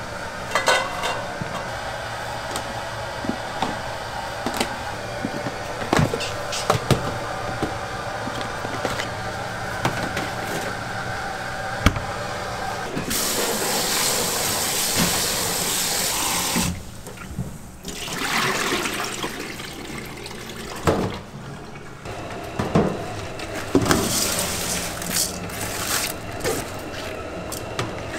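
Water running hard from a tap into a container for a few seconds about halfway through, stopping abruptly, then running again briefly, amid the clinks and knocks of kitchen utensils.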